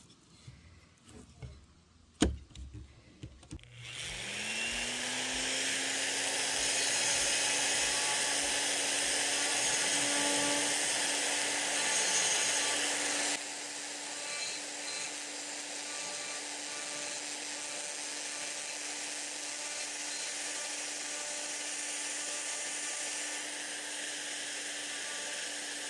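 A few handling knocks, then a small electric power tool spins up with a rising whine and runs steadily against the wood of a cherry serving spoon, shaping or sanding it with a hissing grind. About halfway through the grinding gets a little quieter, as the contact on the wood changes.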